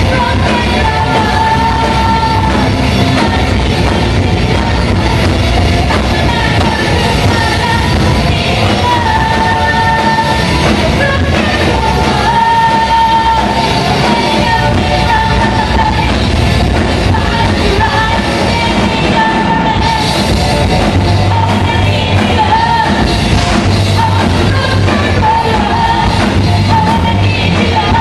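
Live rock band playing: a singer's voice over electric guitars and drums, loud and continuous, with a held melody line recurring every couple of seconds.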